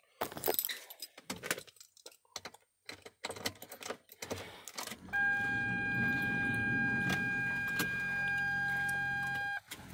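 Keys jangling and clicking at the ignition of a 2004 Ford F650 truck. About five seconds in, a steady, high-pitched dashboard warning buzzer comes on with a low hum beneath it, and both cut out briefly near the end.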